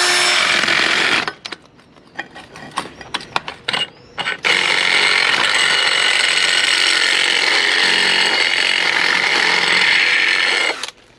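Cordless drill boring a hole through a metal tube: a short burst of drilling, about three seconds of scattered small clicks, then a steady run of about six seconds that stops shortly before the end.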